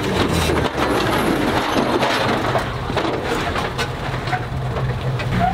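Toyota Hilux pickup's engine running steadily under load as it crawls up a steep sandstone slot, with irregular crunches and scrapes of the tyres on the rock.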